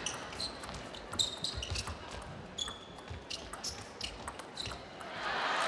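Table tennis rally: the plastic ball clicking off the paddles and the table in quick, irregular succession, with short shoe squeaks on the court floor. Near the end a rush of noise swells and cuts off abruptly.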